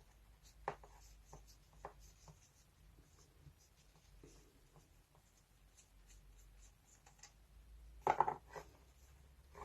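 Faint clicks and taps of hands handling a rotary multi-tool while unscrewing the nut on its nose, with a short cluster of louder clicks about eight seconds in.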